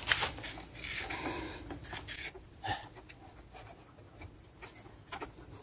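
Long metal jack handle being fitted and worked in a jack under a house wall: a sharp click at the start, then scattered lighter clicks and scraping of metal.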